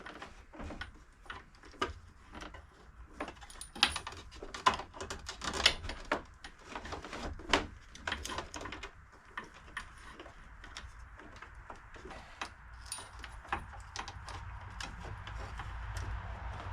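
Irregular metallic clicks and clinks of hand tools and small metal cable fittings being handled, frequent at first and thinning out about halfway, with a soft hiss building near the end.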